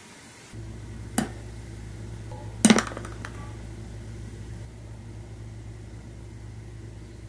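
Two sharp clinks of a glass beer mug knocking against a ceramic plate as it is handled, about a second and a half apart, the second louder. A low steady hum runs underneath.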